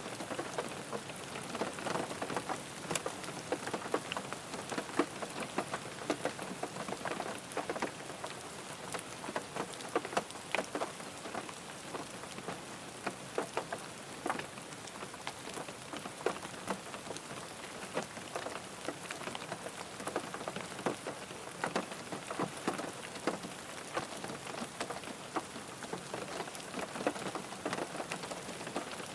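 Steady rain falling on a car, individual drops tapping sharply over a continuous patter.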